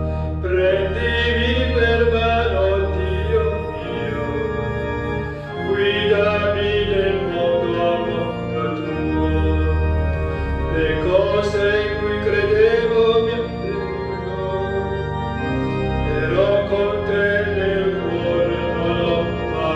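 Church organ playing a slow hymn melody over long held bass notes: the instrumental close of the final hymn, with no words sung.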